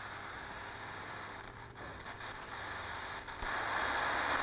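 Static hiss from the speaker of a 1991 Elektronika 23TB-307D CRT television just powered up, over a faint low hum. About three and a half seconds in there is a click and the hiss gets louder as the controls on top of the set are handled; the volume knob will not turn the sound off.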